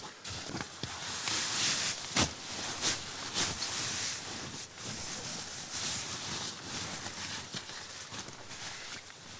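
Rustling and scattered knocks of camping gear and firewood being handled and set out, with a few sharp clicks.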